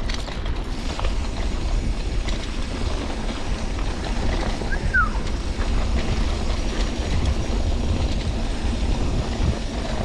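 Mountain bike rolling downhill on a dry, stony dirt trail: a steady rush of wind buffeting the action camera's microphone over tyre crunch and the rattle of the bike.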